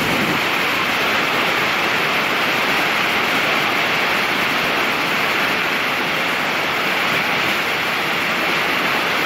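A large waterfall pouring down, heard from close beside the plunge: a steady, unbroken rush of falling water.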